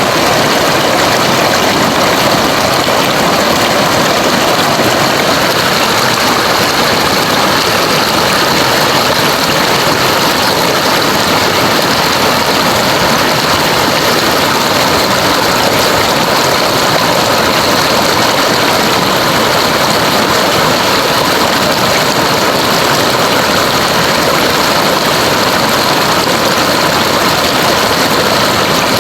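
Rushing river water: a steady, loud, unbroken rush.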